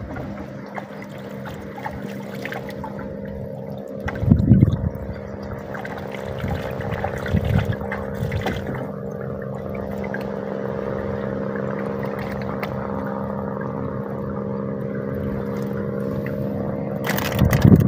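A boat engine drones steadily at a constant pitch, with water moving against the hull. There is a louder bump about four seconds in and a sharp clatter near the end as the net and fish are handled in the boat.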